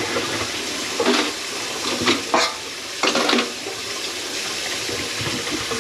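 Kitchen sink tap running water into the sink, testing the drain after a grease clog was cleared. A few sharper, louder sounds come between about one and three and a half seconds in.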